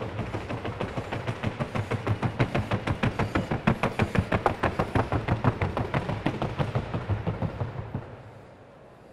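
Hoofbeats of a Colombian trocha mare gaiting across a wooden sounding board: a fast, even drumming of about seven sharp strikes a second. It grows louder toward the middle and stops abruptly near the end.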